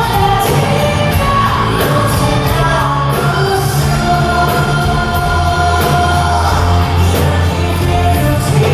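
Rock song with a woman singing long held notes over a band with bass and a steady drum beat.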